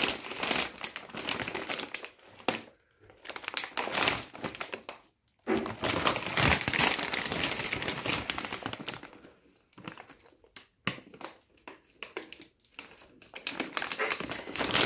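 Plastic bags of shrimp crinkling as they are handled, in stretches broken by short pauses, sparser for a few seconds after the middle.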